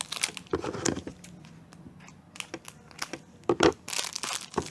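Packaging rustling and crinkling as it is opened by hand. There are irregular crackles and clicks, with a louder handling noise about three and a half seconds in and again near the end.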